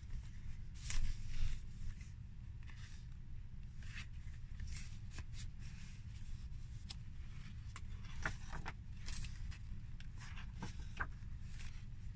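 Paper handling: the pages of a handmade junk journal rustling and being turned, and a photo card being slid out of a paper pocket, heard as scattered soft rustles and taps over a steady low hum.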